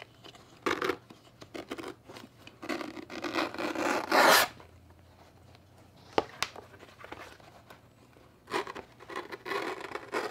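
Razor blade of a wooden strap cutter slicing a strip off thick vegetable-tanned leather, with the tool rubbing along the edge in uneven scraping strokes. The loudest stroke comes about four seconds in, and more strokes follow near the end after a pause broken by one click.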